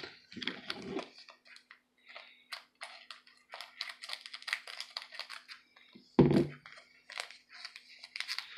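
Trading cards being handled and shuffled against each other: a busy run of quick papery scrapes and clicks, with one louder low thump about six seconds in.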